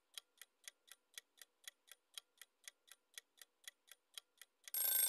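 Clock-ticking sound effect for a quiz countdown timer, about four ticks a second. Near the end a louder ringing alarm sound cuts in as the timer runs out.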